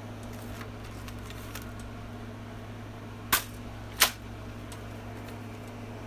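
Toy gun mechanism giving two sharp, loud clicks about two-thirds of a second apart, after a few faint clicks of handling.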